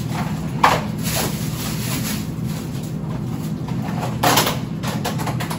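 A few short knocks and rustles over a steady low hum; the loudest knocks come just over half a second in and about four seconds in.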